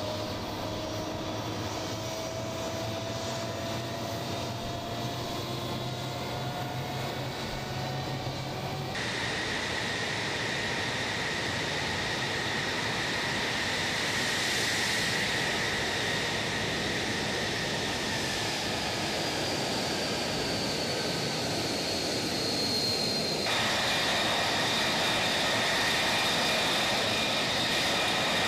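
F-35A Lightning II jet engines, Pratt & Whitney F135 turbofans, running at ground idle on the ramp: a steady rush with a high turbine whine. The whine shifts in pitch about nine seconds in and again near the end.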